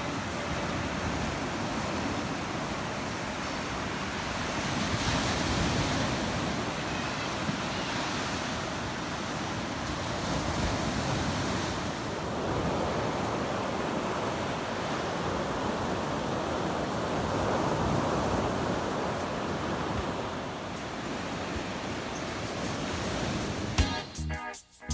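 Sea surf washing on the shore, a steady rushing that swells and ebbs every few seconds. Music starts about a second before the end.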